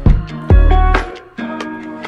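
Background music: plucked melodic notes over deep bass beats, with two heavy bass hits in the first half second.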